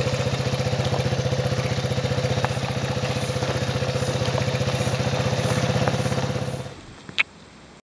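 Quad bike engine running steadily with a fast, even chug as the bike rides along a dirt track. The engine sound falls away near the end, followed by a single sharp click.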